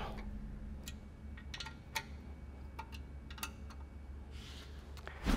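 Scattered light clicks and taps at uneven intervals, from tools and hardware being handled during the install, over a low steady hum.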